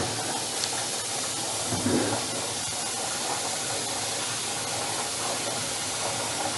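Kitchen tap running a steady stream of water into a pot in a stainless-steel sink, an even hiss of water. About two seconds in there is a brief low sound.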